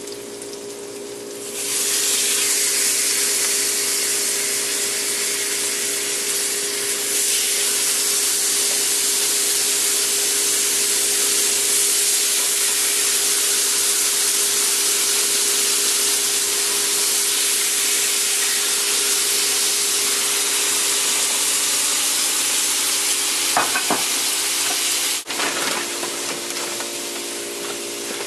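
Fish fillets sizzling in hot oil in a frying pan, with diced peppers. The sizzle turns suddenly loud about a second and a half in as the fillets go into the pan, then runs as a steady hiss over a low hum. It drops after a click near the end.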